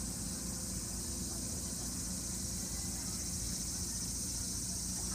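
Steady high-pitched chorus of night insects, over a low background rumble.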